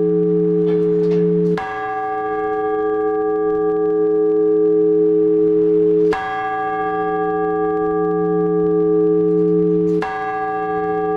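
Orthodox church bells ringing. A large bell is struck three times, about four seconds apart, and each stroke rings on under the next. A few lighter, higher strikes come just before the first stroke.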